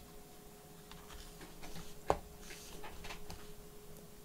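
Faint clicks and taps of a laptop's parts being handled during reassembly, with one sharp click about two seconds in, over a faint steady hum.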